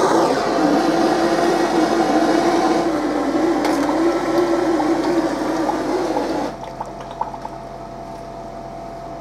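Red-hot gear hob quenched in a pot of oil for hardening: loud sizzling and bubbling that drops away suddenly about six and a half seconds in, leaving a quieter hiss with a few faint crackles.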